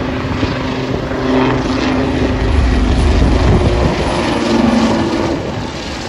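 Royal Navy AW159 Wildcat helicopter flying past: main rotor and twin turboshaft engines running, with a steady engine hum over a deep rotor rumble. It grows louder from about a second in, is loudest around the middle as it passes closest, and eases off near the end.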